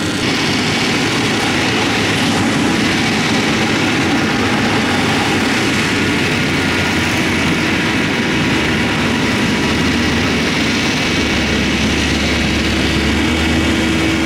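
Mack dump truck's diesel engine running steadily while its hydraulic hoist tips the bed up to dump a load of gravel. A deeper rumble grows stronger about eleven seconds in.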